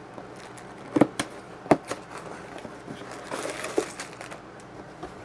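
Cardboard Lego set box being opened: two sharp snaps about a second in and again shortly after, then crinkling of the plastic bags of pieces and paper booklets as the contents are pulled out.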